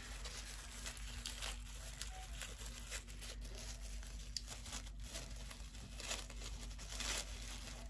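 A small wrapped package being opened by hand: faint, continual crinkling and rustling of its wrapping, with small tearing sounds.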